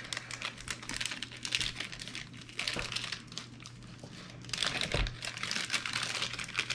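Paper and plastic gift packaging crinkling and tearing as it is pulled open by hand, in quick irregular crackles that ease off for about a second midway and then pick up again.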